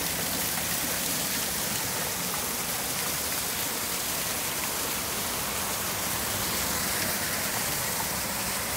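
Flowing water, a steady, even rush with no break or change.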